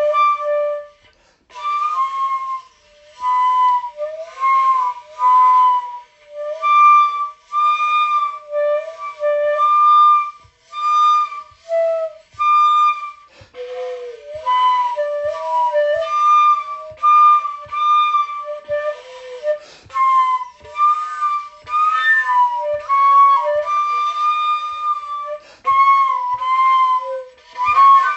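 Flute music: a melody played in short phrases with brief breaks between them, with faint soft taps beneath in the second half.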